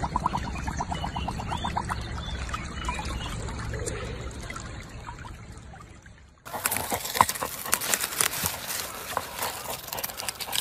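Muddy water sloshing and trickling around a husky lying in a water-filled hole, with a quick run of rapid ticks in the first two seconds. About six seconds in it changes abruptly to a dense run of scratching, crunching clicks as a Labrador digs in loose soil.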